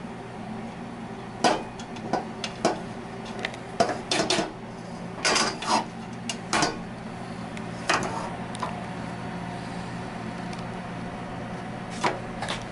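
Spatula scraping and knocking against a stainless steel pot as yellow rice is stirred, in irregular clinks and short scrapes over a steady low hum.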